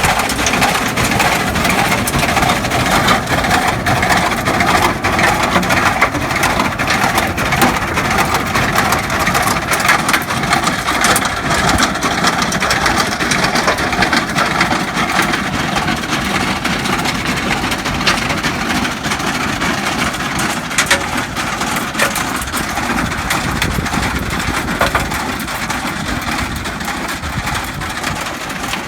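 Hattat tractor's diesel engine running steadily while working a stone-picking machine, with frequent short clicks and clatter mixed into the engine noise.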